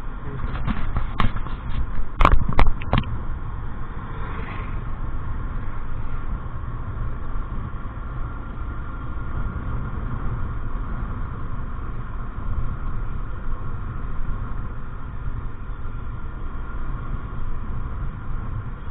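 Steady motor-vehicle road noise, with a short cluster of sharp clicks or pops about one to three seconds in.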